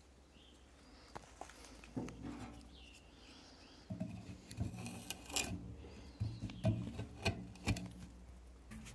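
A knife blade knocking and scraping at a wooden block, digging out an embedded .50 calibre airgun slug. Faint clicks and knocks start about four seconds in, over a low steady hum.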